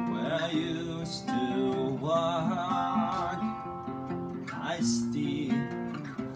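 Instrumental song intro: strummed acoustic guitar, with a wavering melody line over it.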